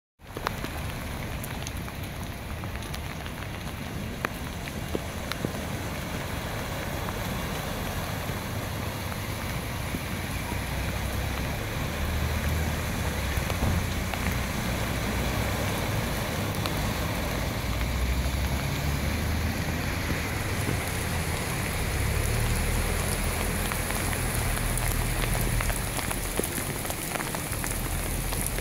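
Steady rain falling on a flash-flooded street, with a car splashing through the standing water about halfway through and a low rumble underneath.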